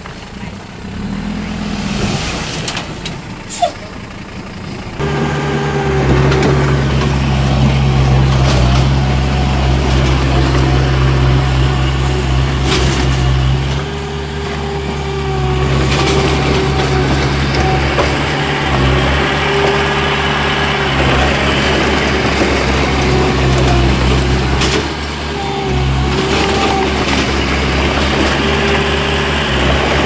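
Heavy diesel engine of earthmoving machinery running steadily. It comes in louder about five seconds in and eases briefly a couple of times, with occasional knocks over it.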